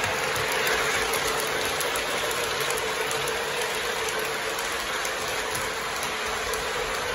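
Lionel Legacy Southern 4501 Mikado O-gauge model steam locomotive and its passenger cars running along three-rail track: a steady rolling noise with faint irregular ticking of wheels over the rails.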